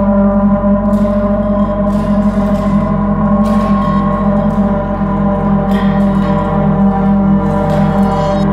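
Ambient drone music: many layered tones held steady, the strongest a low hum, with faint short clicks now and then.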